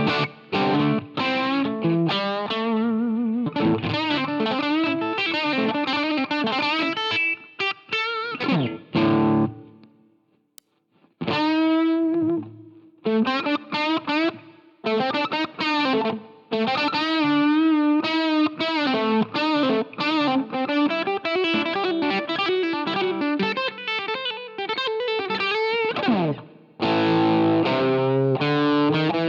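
Electric guitar played through an iSet Dumbler overdrive pedal, a Dumble-style drive with a light, dynamic crunch: single-note lead lines with bends, a brief pause about ten seconds in, then more licks and a ringing strummed chord near the end.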